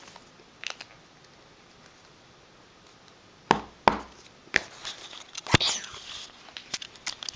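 A few sharp knocks and clicks in a small room, then lighter tapping and rustling, like a camera and objects being handled.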